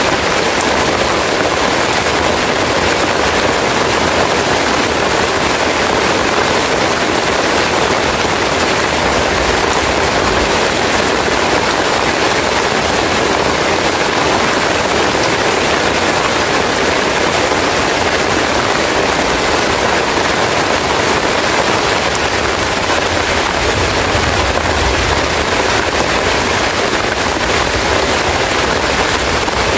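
Heavy rain falling on banana leaves, a steady dense hiss.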